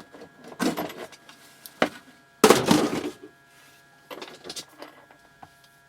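Hands handling small equipment: a few short knocks and rustles, with a louder rustling clatter lasting under a second about two and a half seconds in, over a faint steady electrical hum.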